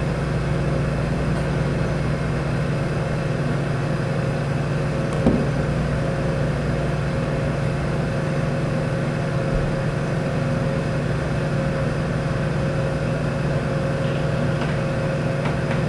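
Steady low hum of laboratory machinery, with a thin steady tone above it; one light click about five seconds in.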